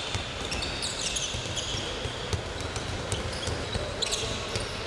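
Handballs bouncing on a wooden sports-hall floor and smacking into hands during a passing and dribbling drill, many knocks overlapping, with short high sneaker squeaks as players run and turn.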